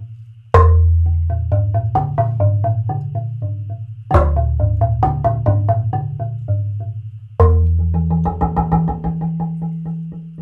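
Live improvised percussion played three times over: each phrase opens with a loud struck deep note that rings and slowly fades, followed by a quick run of short pitched taps.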